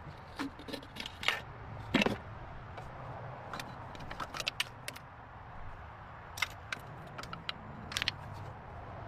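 Scattered light metallic clicks and clinks, with a louder clank about two seconds in, over a low steady rumble.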